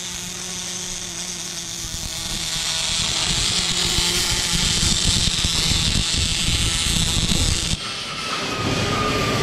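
MIG welding arc crackling steadily as a bead is pushed along a steel joint, growing louder about two seconds in and cutting off abruptly near the end as the welder stops.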